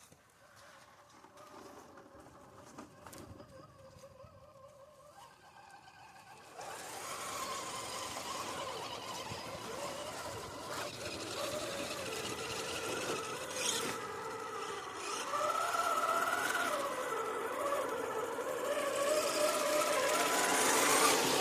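Radio-controlled rock crawler's electric motor and drivetrain whining, the pitch wandering up and down with the throttle; it sets in about six seconds in after a quieter stretch.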